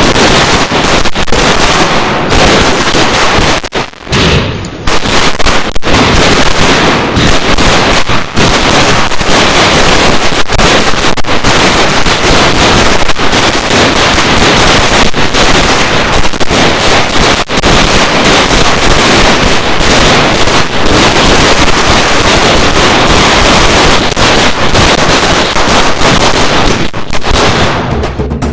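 A 600-wala string of bijili firecrackers going off in rapid, continuous bangs, with a brief lull about four seconds in; the bursting stops just before the end.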